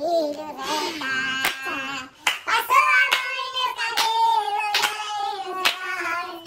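A young man's voice singing a sertanejo song unaccompanied, holding long, wavering notes, with several hand claps along the way.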